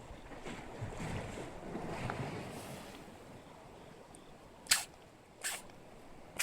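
Bigfin reef squid squirting water from its siphon, the 'sneeze': three short, sharp spurts close together near the end, the first the loudest.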